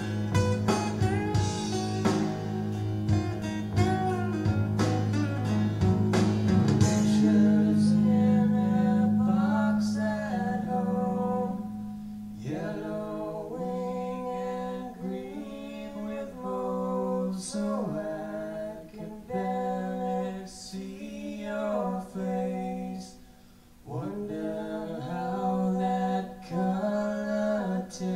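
Acoustic rock music played through refurbished Fisher XP-7 loudspeakers and picked up by a microphone in the room: strummed guitar over a steady low note, then sung phrases with short pauses between them from about twelve seconds in.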